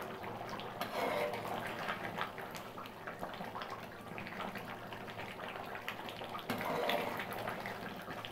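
Chicken and bottle gourd curry bubbling in a large pan at a boil, with many small pops and crackles, while a ladle stirs through it.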